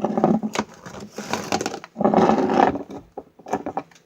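Slime being squished and worked in the hands close to the microphone, in three squishing bursts of under a second each, with small clicks in between.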